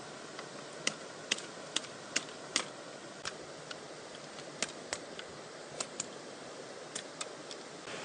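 Machete blade striking and cutting thin branches: a run of short, sharp knocks, about two a second at first, then sparser, over a steady background hiss.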